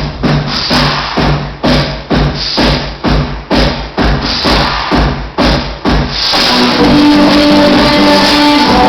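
Music played loudly through a car sound system: a heavy beat about twice a second, then about six seconds in it switches to a fuller song with guitar and singing.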